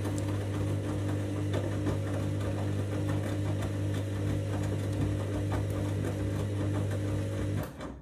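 Candy front-loading washing machine's drum motor running as the drum tumbles a foamy rinse load: a steady hum with water sloshing and small clicks. It cuts off sharply just before the end as the drum stops turning.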